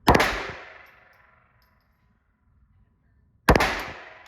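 Two shots from a Walther PPK/S .22 LR pistol, about three and a half seconds apart, each a sharp crack followed by a fading echo.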